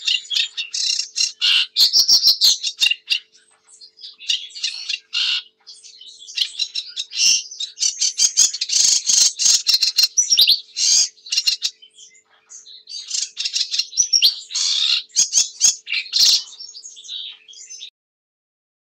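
Sedge warbler singing: long, fast strophes of dry clicking rattles mixed with short whistled notes, in three bursts with brief pauses between them. The song stops abruptly near the end.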